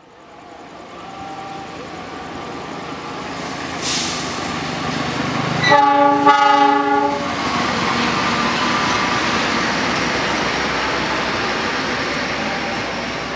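CC206 diesel-electric locomotive hauling a passenger train approaches and passes, its engine and wheels on the rails building to a steady noise. The locomotive's horn sounds one blast of about a second and a half, some six seconds in.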